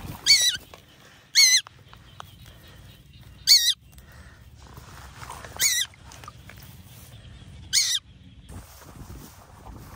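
Loud, harsh squawking calls from a bird, five times, each about a third of a second long with a wavering pitch, spaced unevenly one to two seconds apart.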